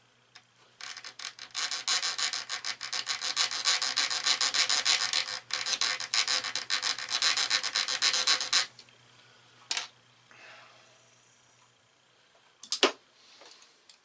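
A hand-held hacksaw blade sawing rapidly back and forth on a thin metal pin to score a mark in it, in quick short strokes that stop abruptly after several seconds. A click and then a sharp knock follow near the end.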